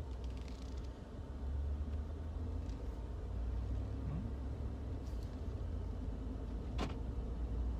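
2015 Ford F-150's 5.0 V8 running at low revs while the truck rolls slowly, a steady low rumble with no heat-shield rattle now that the shield is clamped down. One sharp click near the end.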